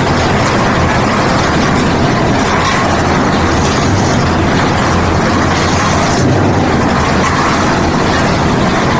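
Concrete mixer with hopper running steadily: a low engine hum under loud, even mechanical noise.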